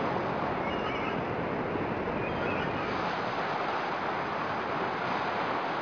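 Ocean surf: a steady, even wash of waves, with a few faint high chirps near the start.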